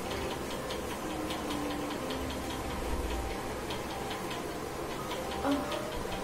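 Light, even ticking, a few ticks a second, over a low hum, with a brief faint sound about five and a half seconds in.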